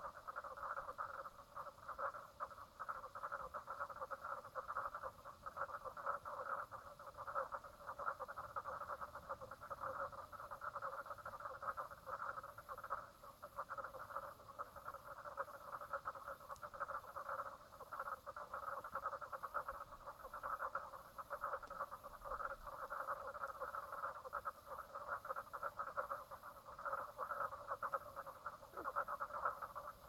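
Chorus of many frogs calling at once: a dense, unbroken mass of rapid pulsing calls that keeps up throughout.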